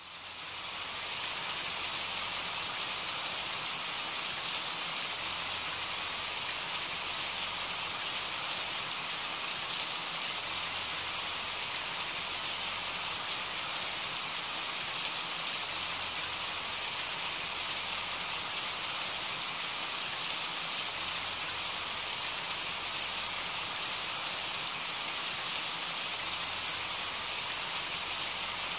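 Steady rain falling, an even hiss with faint scattered drop ticks throughout; it fades in over the first second.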